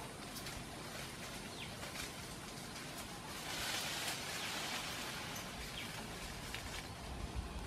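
Quiet woodland ambience with scattered short bird chirps, and a spell of brush and leaves rustling about three and a half seconds in as a person pushes through undergrowth on foot.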